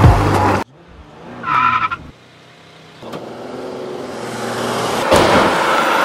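Car sounds cut together: a short high tyre squeal about a second and a half in, then a car's engine and tyre noise building up, a sharp knock about five seconds in, and the car running loud after it.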